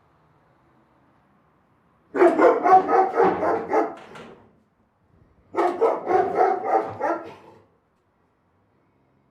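Big dog barking in two quick bouts of about six or seven barks each, roughly three barks a second; the first bout starts about two seconds in and the second just past halfway.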